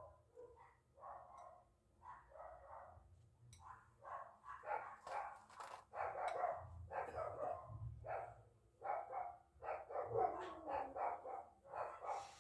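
A dog barking over and over in short, irregular barks, which come thicker and louder from about four seconds in.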